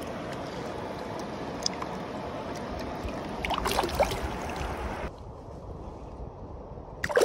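Shallow river water flowing over stones, with splashing about three and a half seconds in as a brown trout is held in the water and handled. About five seconds in the sound drops suddenly to a quieter, duller hush of calmer water.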